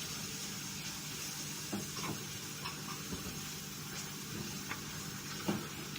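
Mushrooms in cream and flour sizzling gently in a hot pan while a spoon stirs them, with a few light scrapes against the pan.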